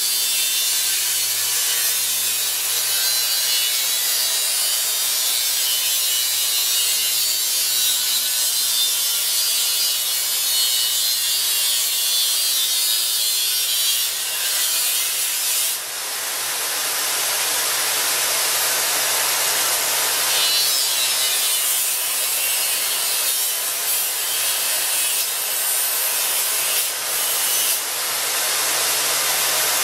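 Angle grinder clamped in a vise, its abrasive disc grinding down the end of a metal curtain rod in a steady, continuous grind over the hum of the motor. The grinding eases briefly about halfway through, then resumes.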